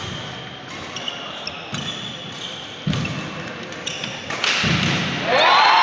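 Badminton rally: sharp racket hits on the shuttlecock and short squeaks of shoes on the wooden court. About a second before the end, the hall fills with applause and a long held cheer as the rally ends.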